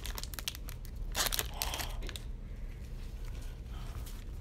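Foil card-pack wrapper crinkling and tearing in two short bursts in the first second and a half, followed by quieter handling of the packaging.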